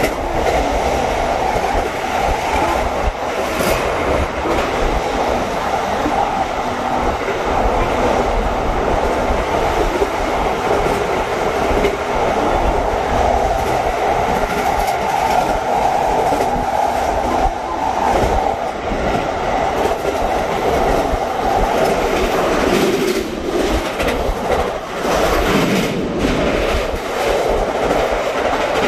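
Passenger train running at speed, heard from inside the carriage: a steady noise of wheels on rails with some clickety-clack.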